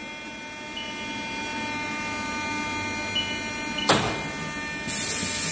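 Haas VF-2SS vertical machining center running with a steady hum during a spindle-probe check. A sharp clunk comes about four seconds in, then a burst of hiss near the end.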